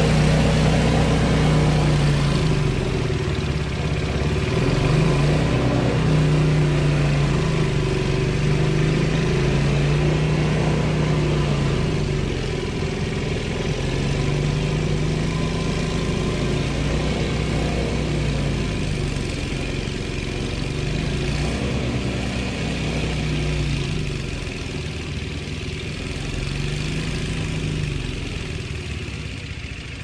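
Engine of an MTD-built Yardworks two-stage walk-behind snowblower running while clearing snow, its pitch repeatedly dipping and recovering as it takes on snow. It grows quieter in the second half as the machine moves away.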